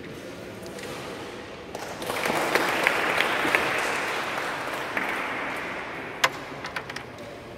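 Applause that swells about two seconds in and dies away over the next few seconds. It is followed by a few sharp clicks of carrom pieces being struck near the end.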